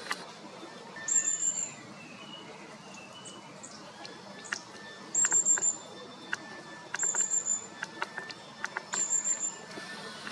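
Small songbird calling: a short, very high, rapid trill given four times, with fainter bird notes and scattered sharp clicks in between.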